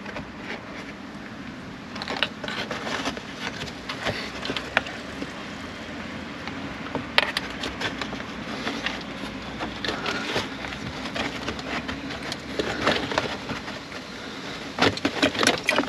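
Scattered small clicks and rustling of a thin electrical wire and plastic trunk trim being handled as the wire is fed behind the trunk lining.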